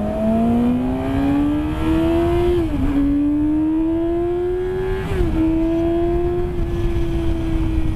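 Yamaha R6 inline-four with a Yoshimura exhaust accelerating through the gears: the engine note climbs, drops with an upshift about two and a half seconds in, climbs again, drops with a second upshift about five seconds in, then holds nearly steady.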